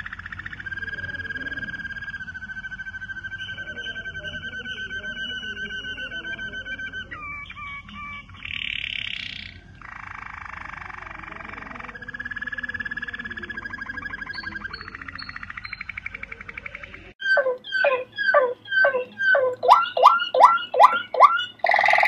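Domestic canary song made of long rolling trills, some held steady for several seconds, with changes of tour in between. About three-quarters of the way through comes a louder run of short, sharp falling notes that speed up to two or three a second.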